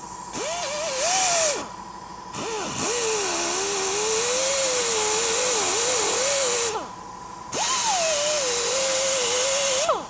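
Handheld grinder grinding down a tire's rubber sidewall in three passes, its motor whine dipping and wavering in pitch as it is pressed into the rubber, over a loud abrasive hiss.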